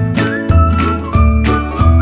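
Background music with a steady beat, about three beats every two seconds.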